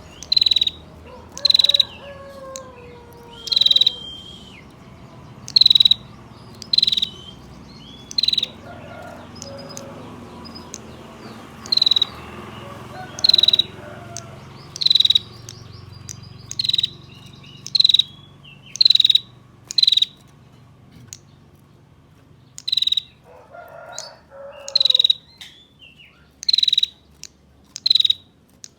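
Female prenjak (prinia) calling in its dry 'tir' bursts: about twenty short, sharp calls repeated every second or two. This is the female's call used to draw males into calling. Fainter bird notes sound underneath.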